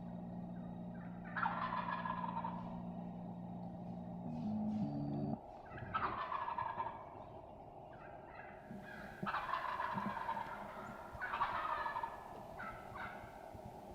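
Wild turkey gobbler gobbling four times, each a rattling call a second or so long. Under the first two gobbles runs a low steady hum that steps up in pitch and cuts off about five seconds in.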